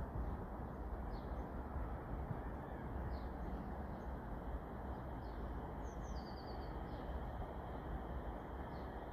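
Faint birdsong over a steady low background rumble: short high chirps repeated about every one and a half to two seconds, with a brief rapid trill about six seconds in.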